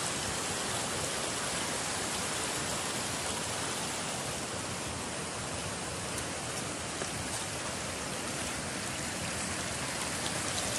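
Shallow stream running over rocks and stones: a steady rush of water.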